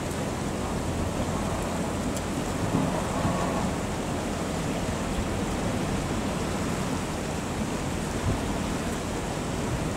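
Wind buffeting the microphone as a steady, rumbling hiss, over the running engine of a truck-mounted crane.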